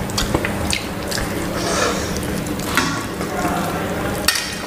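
Eating sounds at a meal of rice and curry: rice and curry squished and mixed by hand and chewed, with a few sharp clicks of a plastic rice spoon against a steel serving bowl as rice is scooped out.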